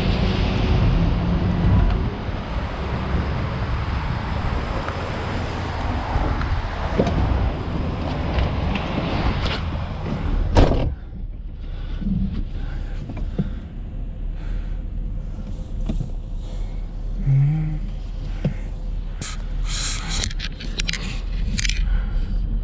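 Steady vehicle and road noise, with a single sharp knock about ten seconds in, after which it turns quieter with scattered small clicks and knocks.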